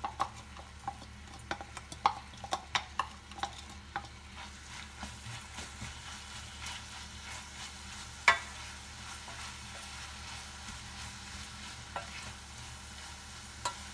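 Wooden spoon stirring minced beef and chopped onion frying in a stainless steel pot, over a steady low sizzle. The spoon's clicks and knocks come thick in the first few seconds, then sparser, with one loud knock about eight seconds in.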